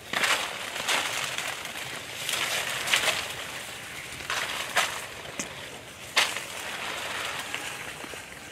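Footsteps crunching through dry vegetation, one crunch every second or so.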